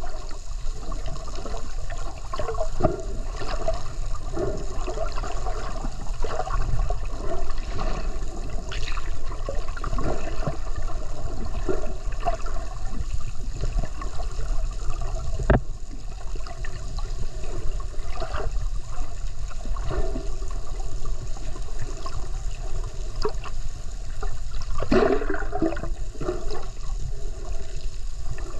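Underwater water noise around the camera: a steady low rush with scattered bubbling and gurgling, and a louder burst of bubbling near the end.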